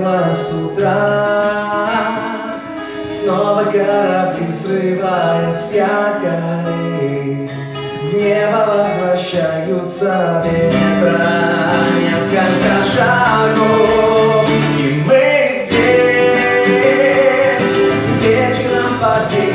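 A man singing a song, accompanied by two acoustic guitars.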